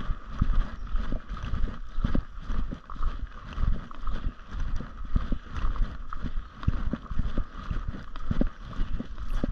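Footsteps on a gravel road, about two steps a second, with wind rumbling on the microphone.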